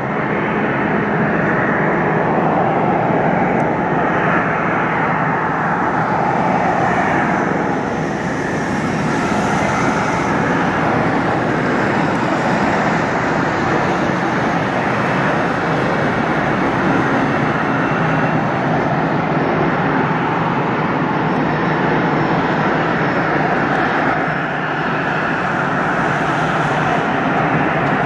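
Jet airliner engines running: a loud, steady rushing noise with a low hum underneath.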